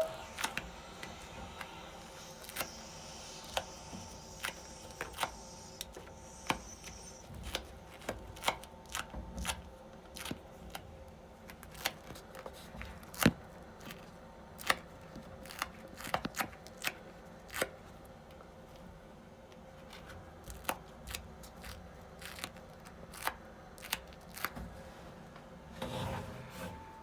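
Sharp clicks at uneven spacing, roughly one every second or so, over a faint steady hum: the abnormal noise reported in a building's shared area.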